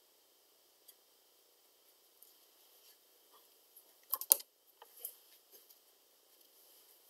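Faint room tone broken about four seconds in by a brief cluster of sharp clicks, with a smaller click about a second later: a paintbrush and watercolour paper being handled as the painter sets down the brush and lays her hand on the sheet.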